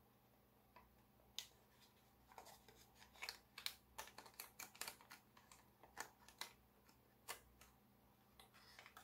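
Foil origami paper crinkling and crackling as it is folded and pinched between the fingers: irregular sharp crackles, thickest about three to five seconds in.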